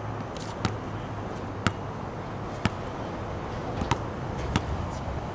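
Basketball dribbled slowly on a hard court: sharp single bounces about once a second, over a steady low hum.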